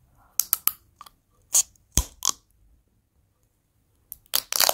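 Close-miked crunching and chewing of a candy in the mouth: a string of sharp, crisp crackles in small clusters, with a denser run of crackles near the end.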